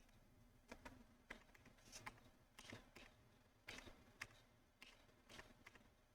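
Faint, irregular clicks of computer keyboard keys being typed, against near silence.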